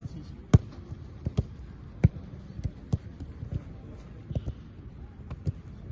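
Footballs being kicked on a grass pitch in a passing drill: a series of about a dozen sharp thuds at irregular intervals, some close and loud, others fainter and further off. The loudest kicks come about half a second and two seconds in.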